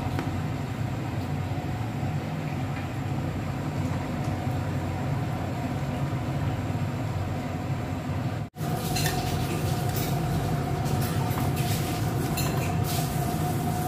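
Steady rumble of a gas burner under a pot of rice boiling in coloured water. After a cut about eight and a half seconds in, a faint steady hum joins in, with light clinks and scrapes of a spoon stirring the pot.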